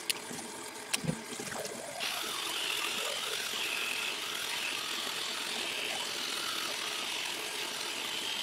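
A couple of sharp clicks from handling the toothpaste and toothbrush, then from about two seconds in a steady rush of water running from a bathroom sink tap while teeth are brushed.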